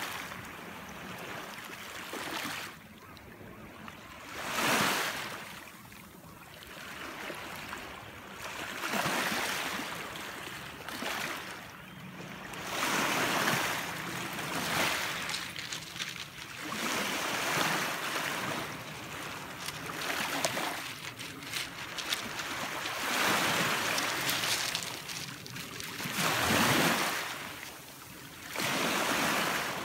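Small waves washing in and breaking at the water's edge, a surge of foamy water every few seconds.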